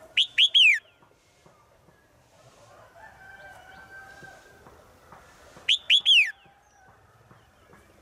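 Female red-whiskered bulbul in a cage calling twice, each call a short burst of three quick, falling notes, about five seconds apart. The call is a female's call to males. A fainter, longer held call sounds in the background between the two.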